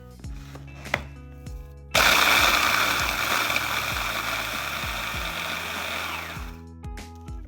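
A small electric kitchen appliance motor starts suddenly, runs loud for about four seconds, and winds down in pitch as it is switched off, over soft background music.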